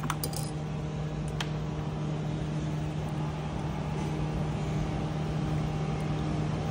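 Steady low mechanical hum of running shop machinery, with a few light clicks of metal tools being handled near the start.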